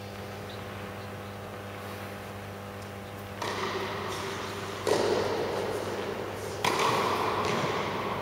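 Tennis ball struck by racquets in a rally, three hits about a second and a half apart starting a few seconds in, each ringing out in the echo of a large indoor hall, over a steady low electrical hum.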